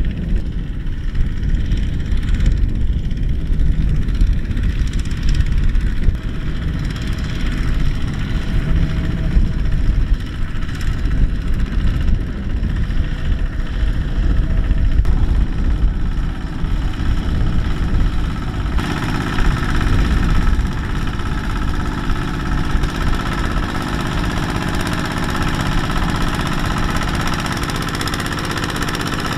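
Single-cylinder diesel engine of a two-wheel walking tractor running steadily under load while it hauls a trailer of rice sacks through deep mud. About two-thirds of the way through the sound turns brighter and harsher.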